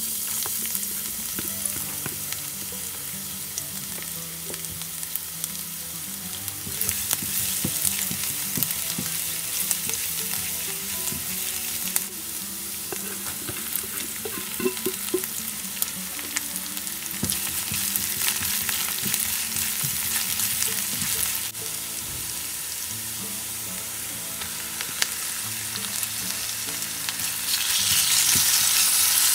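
Minced garlic, then chopped onion, sizzling in hot oil in a nonstick wok, with the scrape and tap of a spatula stirring. The sizzle grows louder near the end as raw chicken breast pieces go into the pan.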